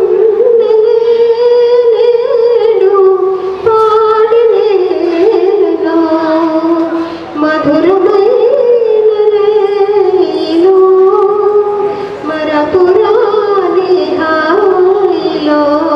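Music: a woman singing a melody in held notes that glide from one pitch to the next.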